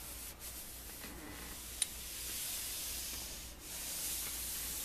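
Iron fitted with a Teflon-coated shoe guard sliding over fabric: a soft hissing rub in long strokes, with a short break about three and a half seconds in.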